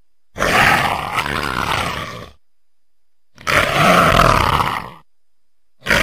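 Leopard calling: three long calls, each lasting one and a half to two seconds, with about a second's pause between them; the third starts near the end.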